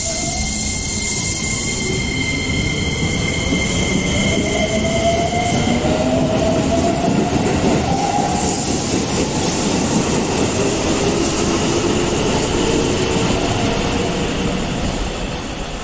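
Keikyu electric commuter train pulling out of the station and speeding up, its motors whining in rising steps of pitch over the rumble of the wheels on the rails. The sound fades near the end as the last car leaves.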